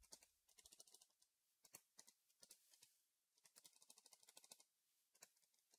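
Very faint computer keyboard typing: scattered soft key clicks, some in quick runs.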